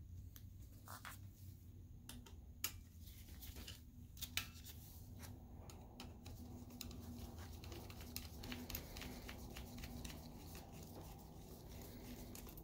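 Faint clicks and ticks of a screwdriver turning a small screw in the metal mask bracket of a DLP projector's light tunnel, with two louder ticks a few seconds in, over a low steady hum.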